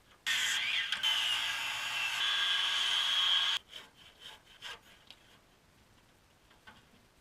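A saw cutting steadily through wood for about three seconds, starting and stopping abruptly, followed by a few faint knocks.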